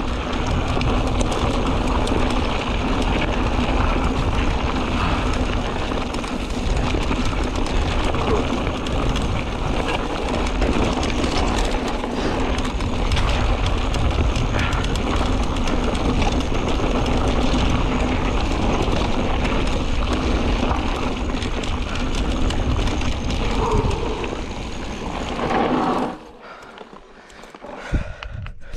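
Mountain bike rolling along a dry gravel dirt trail: steady tyre noise on loose ground with scattered small knocks and rattles, and wind rumble on the helmet camera's microphone. Near the end the noise drops suddenly much quieter, and there is one sharp click just before the end.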